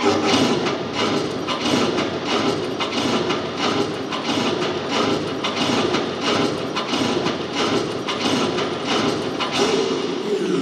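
A military-style percussion cadence from the routine's music: sharp, evenly spaced drum hits, two to three a second.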